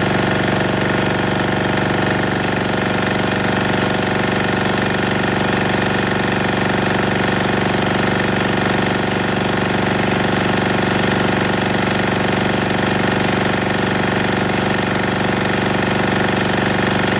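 Denyo DA-2405 diesel generator engine running steadily under a 1500 W heater load, fuelled with diesel emulsified with 20 wt% water. The engine speed holds even throughout.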